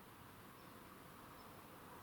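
Near silence: a faint, steady background hiss with no distinct events.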